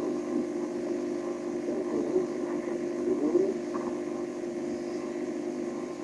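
Steady low hum from an old CRT television's speaker, broadcast audio with faint indistinct voices in it.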